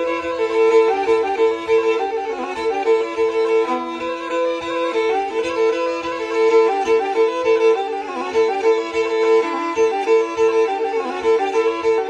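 Black Sea kemençe music: a fast, repeating bowed melody in the style of a horon dance tune, with a steady low beat underneath.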